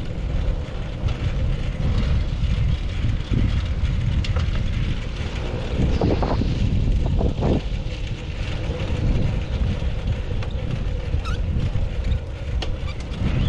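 Wind buffeting the camera microphone while riding a two-person bicycle, a steady low rumble with the bike rolling along underneath.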